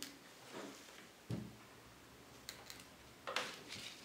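Handling noise from a circuit board on a wooden base being moved out of its enclosure and set down: a soft knock about a second in, a couple of small clicks, and a brief scrape near the end.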